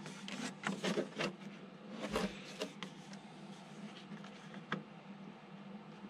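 Handling noise from a balsa RC-plane fuselage being turned over and set down among cardboard and foam: a quick run of light clicks, knocks and rubbing in the first two and a half seconds, then a few scattered ticks.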